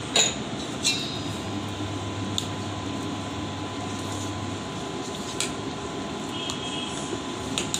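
Steel ladle stirring thin semolina batter in a steel pan, with a few light clinks of the ladle against the pan, over a steady hum.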